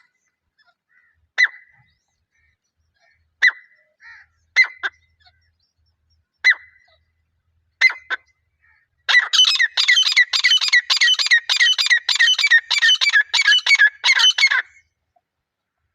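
Francolin (teetar) calling: single sharp calls every second or two, then a fast run of repeated calls, about three a second, for over five seconds before it stops.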